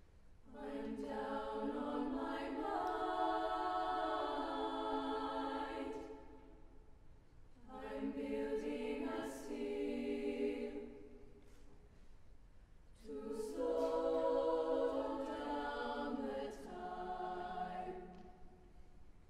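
Mixed-voice choir singing a cappella in held chords, in three long phrases with short pauses between them.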